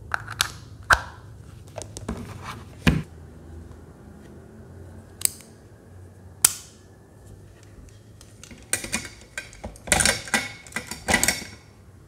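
Hard plastic clicks and knocks from handling: a USB plug pushed into a power bank early on, then a burst of clattering near the end as a handful of plastic pens is dropped into a plastic pen holder.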